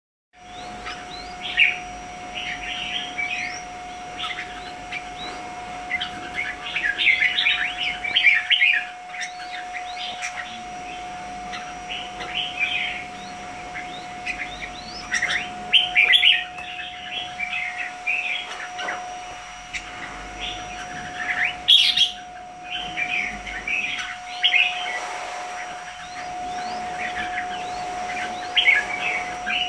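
Caged pied red-whiskered bulbuls chattering and calling in quick, repeated bursts of short chirpy notes. A steady, thin hum runs underneath.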